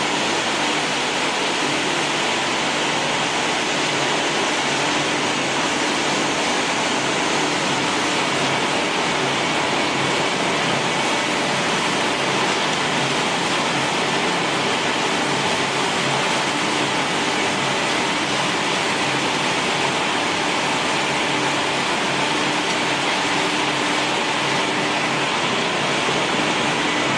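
Grass pellet machine running steadily: a dense, even mechanical noise with a faint hum under it.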